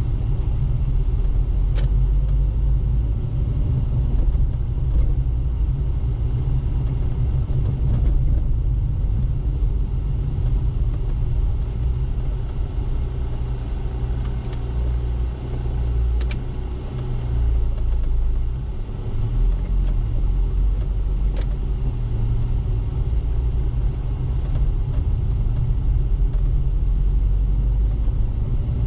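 A car driving steadily: a low, even rumble of tyre and engine noise, with a few faint ticks.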